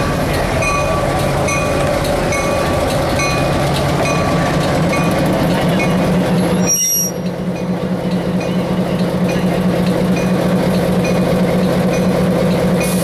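Diesel switcher locomotive running as it rolls slowly past close by, with a steady engine drone. Its bell rings about every two-thirds of a second through the first half, then stops after a brief dip in the sound about halfway through, leaving the engine drone stronger.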